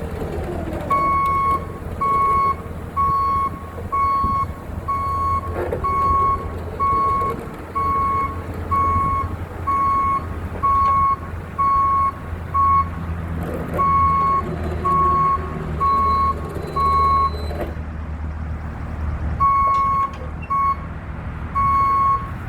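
A backup alarm beeps in a steady single tone, about one beep every three-quarters of a second, over a diesel engine running, with a few short squeals. The beeping pauses briefly twice.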